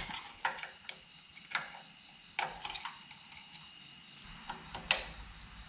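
Hand tools working on a Makita angle grinder's spindle and bevel gear held in a vise: a wrench on the spindle nut and a screwdriver clicking against the metal parts, about six short, sharp clicks with gaps of up to two seconds between them.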